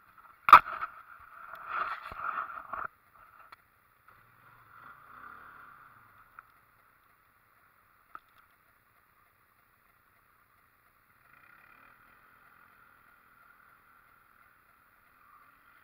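Camera handling noise: a sharp knock about half a second in, then a couple of seconds of rubbing and scraping against the camera. After that only a faint, muffled hiss.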